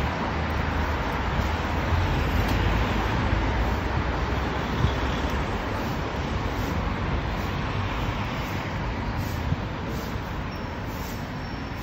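Steady city road traffic: cars and buses running along a multi-lane street, a continuous low rumble of engines and tyres.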